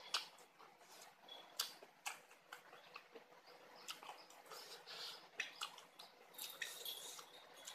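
Eating sounds: chewing with irregular sharp mouth clicks, as fingers pick spicy oyster mushroom salad from a plate.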